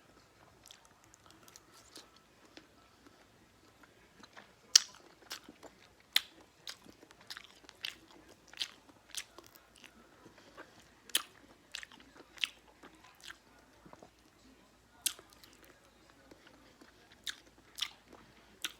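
A person chewing a mouthful of ham close to the microphone, with sharp, irregular wet mouth clicks and smacks about once or twice a second.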